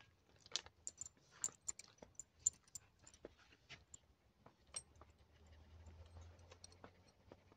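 Faint, irregular small clicks and taps, a dozen or so spread unevenly, with a faint low hum around the middle.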